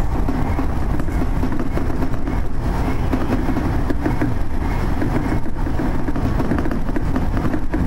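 Seibu 30000 series electric train running at speed, heard from inside the driver's cab: a steady, loud rumble of wheels on rail and running gear.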